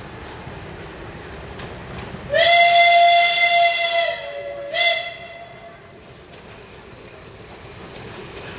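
Narrow-gauge steam locomotive's whistle: one long blast of nearly two seconds, dipping slightly in pitch as it ends, then a short second blast, over a low steady rumble.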